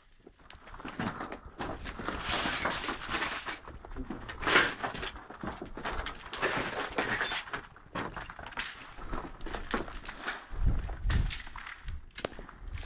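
Several people's footsteps crunching and scuffing over rubble and debris on a concrete floor, with irregular knocks and thuds, one louder clatter about four and a half seconds in.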